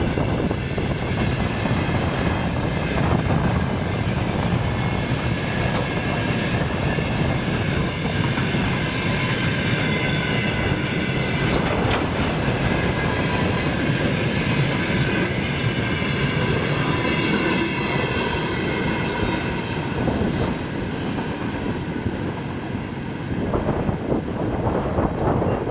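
A service train hauled by a VL11 electric locomotive rolling past, its wheels clattering over the rail joints, with a steady high whine from the wheels over the rumble. Strong wind is blowing.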